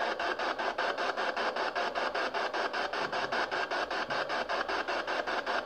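P-SB7 spirit box sweeping through radio stations: a steady hiss of static chopped into rapid, even pulses several times a second.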